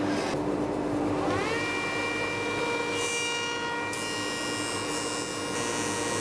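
H1763 spindle moulder running up after being switched on: a whine rises in pitch and settles to a steady tone about a second and a half in, then runs steadily. A hiss comes in about three seconds in.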